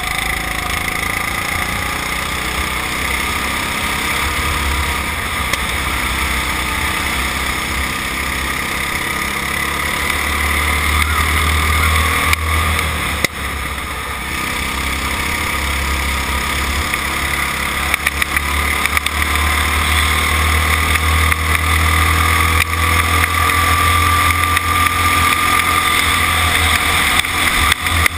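Go-kart engine running at racing speed, heard from on board, over a steady low rumble. The engine pitch dips briefly about halfway through, then climbs gradually as the kart accelerates down a straight.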